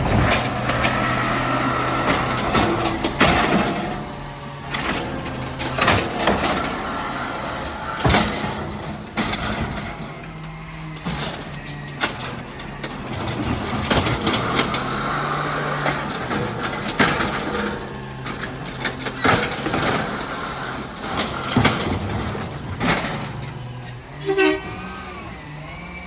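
Recycling truck's diesel engine running steadily, with repeated bangs and clanks as recycling is collected. Near the end the truck gives a short honk of its horn.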